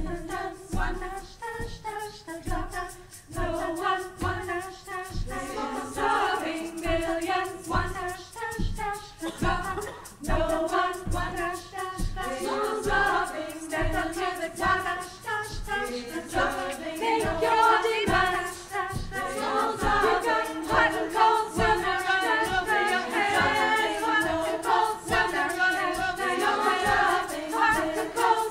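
Women's choir singing in harmony, unaccompanied except for a frame drum keeping a steady beat.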